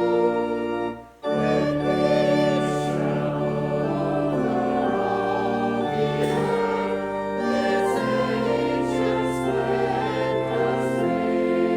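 Choir singing with organ accompaniment, the voices and bass notes held in long sustained chords; the music breaks off briefly about a second in and then resumes.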